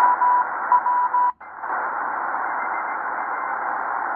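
Tecsun PL-330 shortwave receiver in upper sideband mode, its speaker giving steady band hiss with Morse code beeps at one steady pitch keying on and off for the first second or so. About a second and a half in, the audio cuts out for a moment as the radio is tuned, the muting chuff of this receiver, then only static continues.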